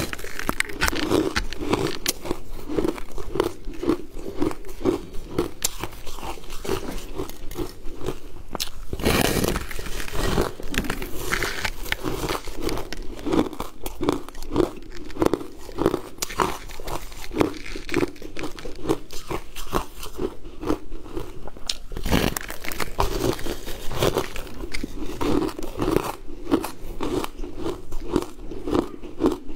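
Close-up crunching and chewing of a slab of frozen sweetened ice: crisp bites and a rapid run of chewing crunches, with bigger bites about nine seconds in and again about twenty-two seconds in.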